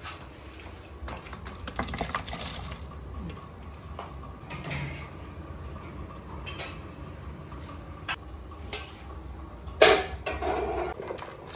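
Stainless steel bowls, pots and utensils clinking and knocking as vegetables are handled, with the loudest metal clank about ten seconds in, over a steady low hum.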